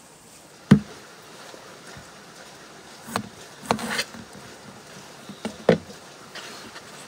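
A sharp knock on a wooden cutting board about a second in, then a kitchen knife cutting through limes and striking the board in several short cuts.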